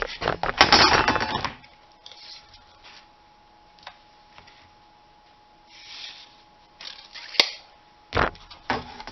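Clatter and knocks of a box cutter and a metal framing square being handled on cardboard while insulation is measured and cut. A dense burst of clattering comes first, then scattered clicks, a sharp click and a knock near the end.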